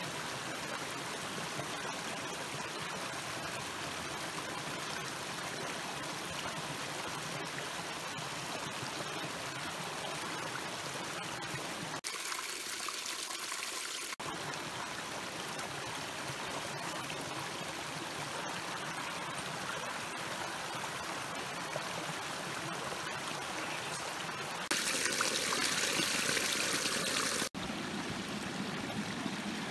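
A small stream flowing steadily, with a louder, brighter rush of water for a few seconds near the end.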